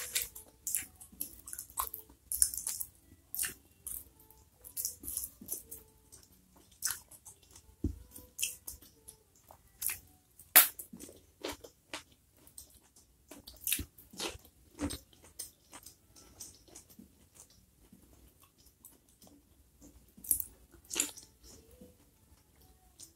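Close-miked eating sounds: wet chewing, lip smacks and sharp mouth clicks, with crisp bites into food, one into a piece of okra near the end.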